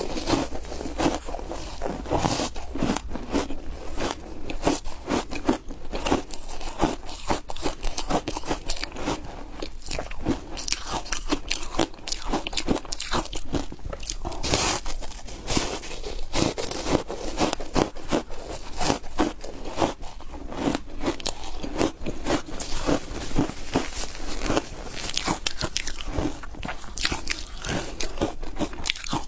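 Close-up chewing and crunching of foam ice (aerated ice), a continuous run of dense, irregular crackling crunches.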